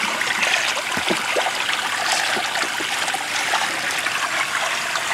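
Water running and trickling steadily, with a few small splashes, as a toddler and his toys are rinsed off in a small pool.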